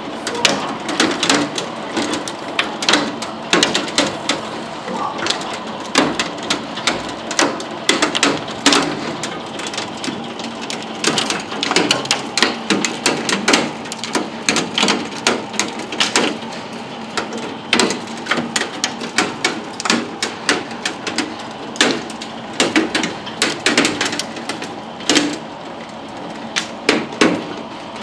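Hail and rain striking a window and its sill: a dense, irregular patter of sharp clicks and knocks, several a second, over a steady hiss of rain.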